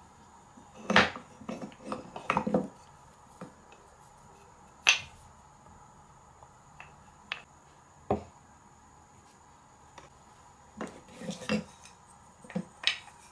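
Wooden marble run pieces (round pillars and coated track sections) knocking and clacking against each other and the table as they are handled. The knocks are irregular: a cluster in the first few seconds, single sharp ones about five and eight seconds in, and another cluster near the end.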